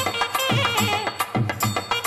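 A thavil barrel drum beating sharp strokes and deep thumps under a nadaswaram's reedy melody, which bends and glides between notes: South Indian temple periya melam music.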